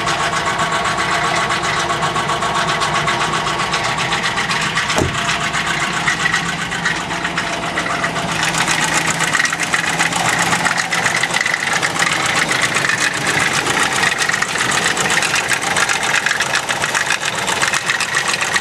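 Ford car engine idling with a fast, steady knocking from inside the engine.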